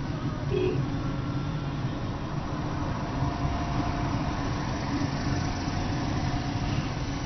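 Steady road and engine noise heard inside the cabin of a Hyundai i20 hatchback driving along.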